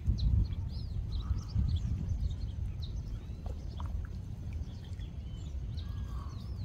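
Outdoor ambience with an uneven low rumble and many faint, short bird chirps scattered throughout.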